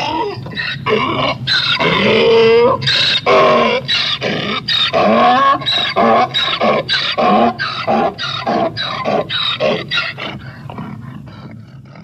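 Donkey braying: long wheezing calls, then a run of alternating hee-haw notes about two a second that fades out near the end.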